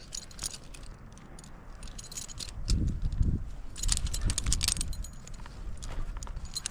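Metal climbing hardware, carabiners and quickdraws, jingling and clinking in short scattered bursts, busiest about four seconds in. Low thumps of handling rub about three seconds in.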